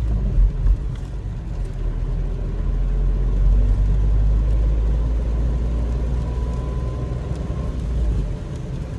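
Suzuki S-Presso's small three-cylinder engine and tyre noise heard from inside the cabin as the car drives on, a steady low rumble that grows a little louder a few seconds in.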